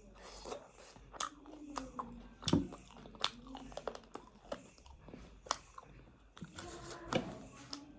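A person eating close to the microphone: chewing and biting with irregular crunches and mouth clicks, the loudest crunch about two and a half seconds in.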